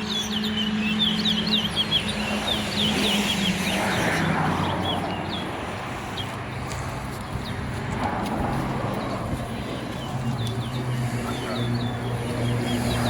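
Towa towa (chestnut-bellied seed finch) singing: quick runs of short, high chirping notes, busiest in the first four seconds and then in scattered bursts. A steady low engine hum runs underneath and drops in pitch about four seconds in.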